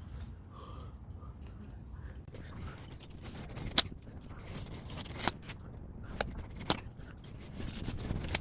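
Knife working on an air-conditioner radiator to free its copper tubing: low scraping and rustling with five sharp clicks spread through it, the loudest about four seconds in.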